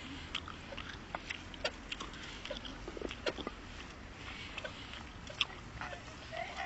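Scattered irregular clicks and light rattles over a low steady rumble, from a bicycle being ridden along a paved path.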